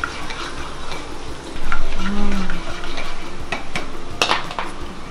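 Hot oil with small chopped bits sizzling in a pot while a plastic spoon stirs and scrapes it, with a few sharp clicks of the spoon against the pot, the loudest about four seconds in.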